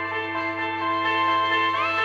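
A Samsung Galaxy S10 ringtone playing: a melody of held notes over a steady low note, with notes sliding upward near the end.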